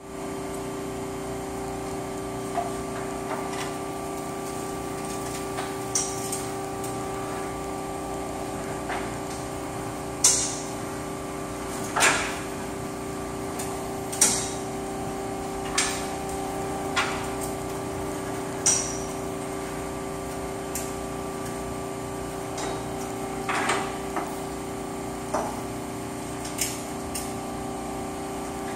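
Steel hoop rotisserie being rolled over by hand on its rollers with an Alfa Romeo Spider body shell in it: scattered sharp metal clanks and knocks, about a dozen, the loudest between ten and fifteen seconds in. A steady hum runs underneath.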